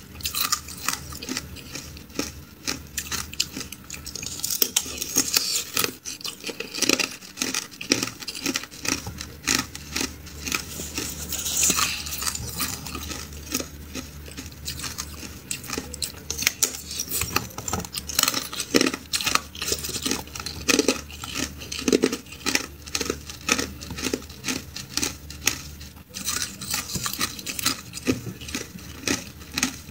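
Teeth biting and crunching a slab of hard clear ice: a dense, irregular run of sharp cracks and crackles, several a second.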